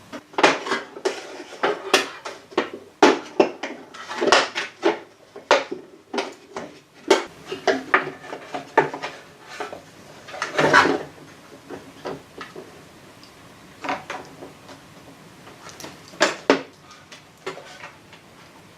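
Irregular metallic clinks and clatter of small metal parts and tools being handled, dense through the first half and sparser later.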